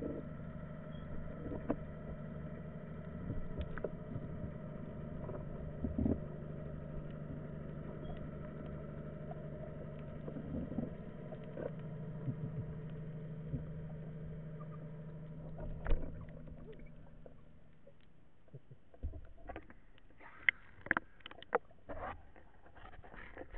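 Steady low hum of a distant boat engine heard underwater, with scattered clicks and knocks. The hum fades about three quarters of the way through, and near the end come several loud splashes as the diver breaks the surface.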